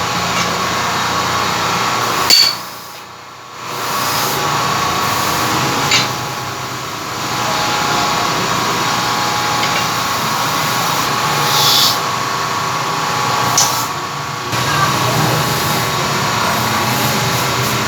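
Workshop machinery running steadily, with a few sharp metal clicks and knocks. It briefly drops away about two and a half seconds in, then picks up again.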